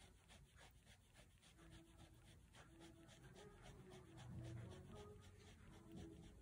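Faint scratching of a Staedtler Pigment Liner 0.1 fine-tip pen on paper, laying down many quick, short hatching strokes in a steady run.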